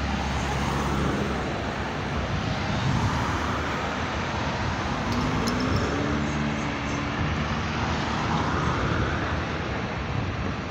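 Road traffic at a city intersection: cars driving past close by, their engine and tyre noise swelling and fading, with an engine note shifting in pitch about halfway through.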